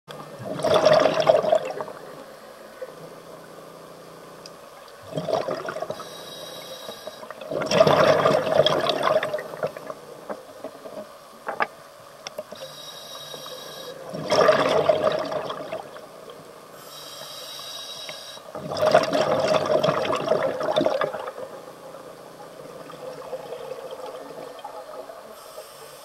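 Scuba diver breathing through a regulator underwater: loud bubbling rushes of exhaled air about every five or six seconds, five in all, with a softer high hiss from the regulator on each inhalation in between.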